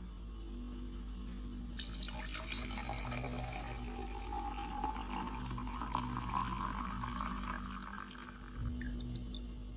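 Liquid being poured into a vessel: a splashing stream starts about two seconds in, its pitch slowly rising as the vessel fills, and it stops near the end. A steady low hum runs underneath.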